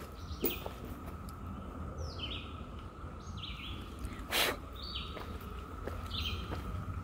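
Steady, ringing hum of a periodical cicada chorus, like a siren far off, with a bird repeating short falling calls over it. A few footsteps on the dirt trail, one louder about four and a half seconds in.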